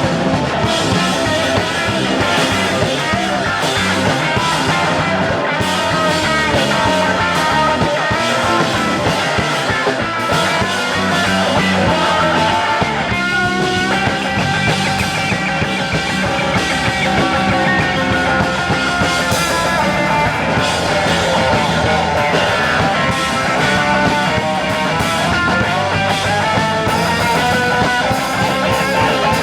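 Rock band playing live, an instrumental stretch with guitar to the fore and no singing.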